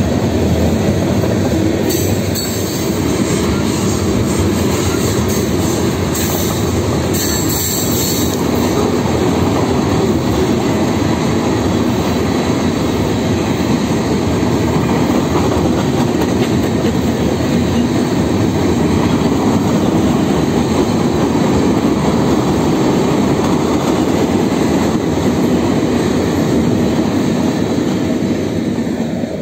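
Freight train cars rolling past on the rails, a steady wheel-on-rail rumble with brief high wheel squeals about two and seven seconds in. The noise drops off near the end as the last car clears.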